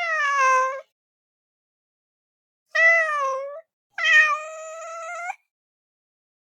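Cat meowing three times: a falling meow at the start, another falling meow near the middle, then a longer, drawn-out meow that holds its pitch, with silence between them.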